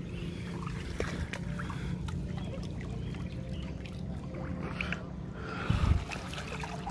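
Water sloshing and splashing as a mesh dip net and a hand are pushed through shallow, weedy lake-edge water to scoop up freshwater shrimp, with a louder, deeper splash about six seconds in.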